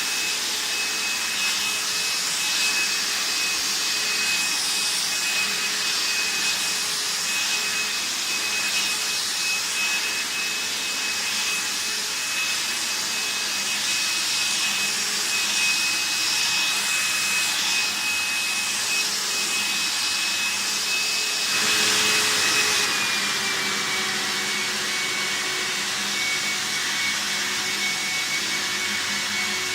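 VAX T1300 upright vacuum cleaner running, a steady rushing motor sound with a high whine. About two-thirds of the way in it briefly gets louder, then the motor's pitch drops slightly and stays lower.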